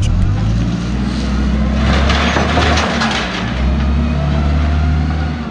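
A vehicle engine running close by: a steady low hum whose pitch shifts slightly about three seconds in, with a burst of rattling noise around two seconds in.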